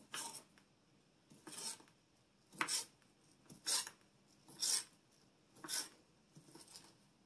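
A kitchen knife slicing through a fully cooked kielbasa and scraping against the cutting board, one short rasping cut about every second, some seven in all.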